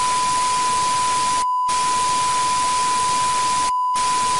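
Analog TV static hiss with a steady high test-tone beep running through it, as on a dead channel. The hiss cuts out briefly twice, about a second and a half in and again near the end, while the beep carries on.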